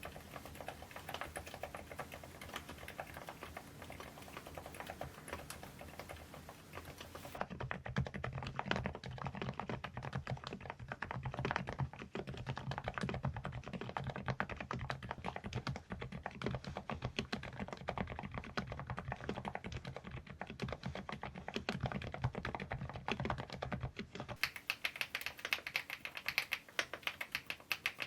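Fast, continuous typing on a Preflow AK74 PRO full-size mechanical keyboard, a dense run of key clacks. The sound changes abruptly about seven seconds in, turning deeper, and again near the end, as if cut between separate typing recordings.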